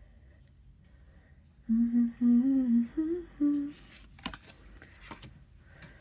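A woman humming a short tune of four notes lasting about two seconds, followed by a few light clicks and taps.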